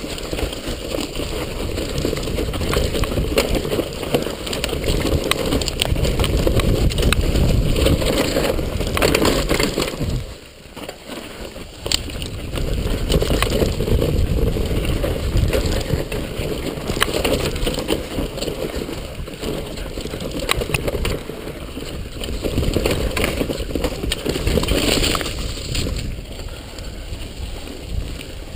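Downhill mountain bike ridden fast over a rough forest trail: a constant rumble and rattle of tyres, suspension and frame over the ground. About ten seconds in it drops quieter for a second or so, then comes back with a sharp knock.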